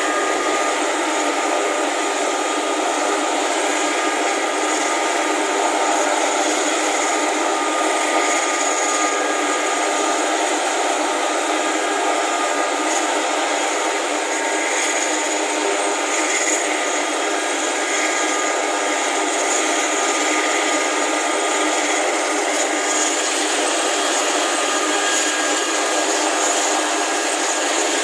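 Large military helicopter's turbine engines running while it sits on the ground before takeoff: a steady, unbroken whine over a dense rushing noise.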